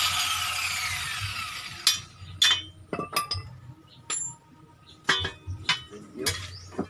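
A power tool spins down with a falling whine and stops about two seconds in. It is followed by a run of light, ringing clinks and taps, about eight of them spread unevenly over the rest of the time.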